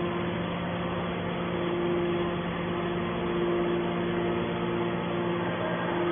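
Hydraulic scrap metal baler's power unit, an electric motor driving the hydraulic pump, running with a steady hum.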